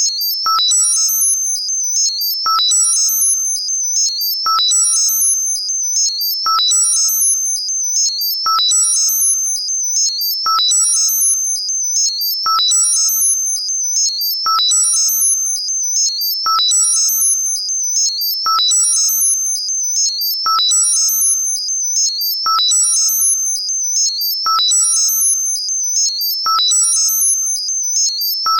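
Synthesized high-pitched tinnitus-masking sound: a steady high whistle with quick stepping notes above it, modulated in a pattern that repeats about every two seconds, each time with a click and a short lower ping.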